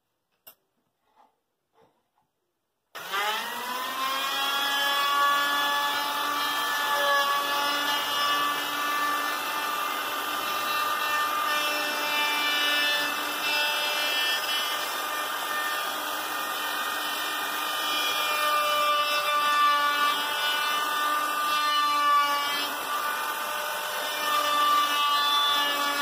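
A few faint clicks, then a Skil plunge router starts about three seconds in, winds up to speed and runs steadily with a high whine, routing a circular groove into a wooden board guided by a circle-cutting rod.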